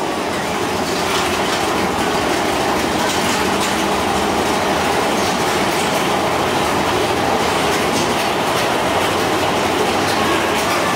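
Mine-train roller coaster running steadily on its track, its wheels giving a continuous rumble and clattering with faint clicks.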